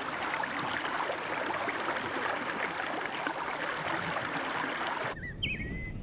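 A river rushing over rocks, a steady noise of flowing water that cuts off suddenly about five seconds in. A few short whistled bird chirps follow over a low rumble.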